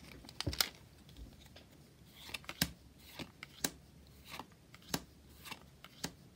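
Magic: The Gathering cards being handled and laid one at a time onto a pile on a table, each giving a short, light click, about one or two a second.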